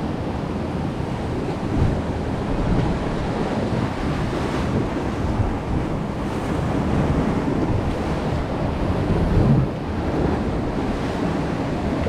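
Water rushing and churning around a round Intamin river-rapids raft, with wind noise on the microphone and a few brief louder surges.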